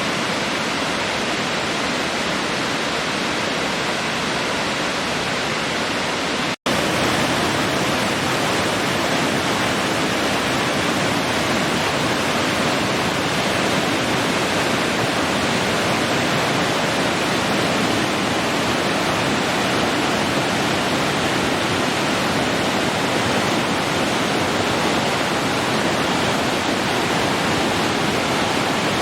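Waterfall: falling water making a steady, even rush. It drops out for a split second about six and a half seconds in and comes back slightly louder.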